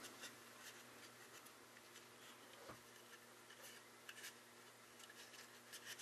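Near silence, with faint scattered light clicks and rubbing from the shell of an HO-scale rotary snow plow model being handled, one tick slightly louder about two and a half seconds in.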